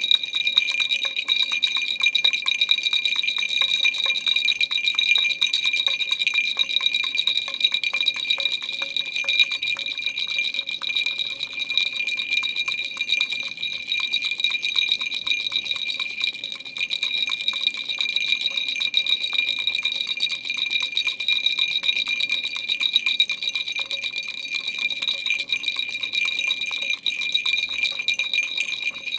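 Baby rattle shaken without pause: a dense, fast clicking with a steady bell-like ringing over it.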